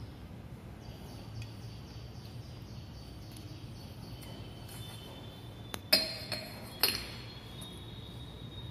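Glass clinking as glass reagent bottles are handled: a few sharp clinks about six seconds in and another about a second later, over faint room noise.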